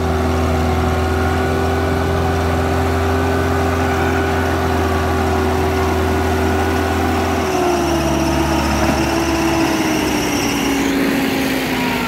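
Massey Ferguson 385 tractor's diesel engine labouring under heavy load as it hauls a loaded sand trolley, a steady strained note that, about two-thirds of the way through, begins to sag slowly in pitch.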